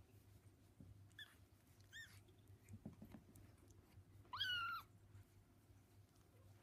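Silver Bengal kitten mewing while it mouths a finger: two faint, short squeaks, then one louder, longer meow about four seconds in.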